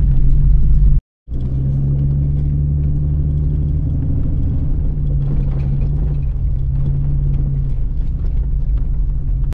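Jeep Cherokee XJ driving on a dirt road, heard from inside the cab: a steady engine and road rumble, with a short gap about a second in.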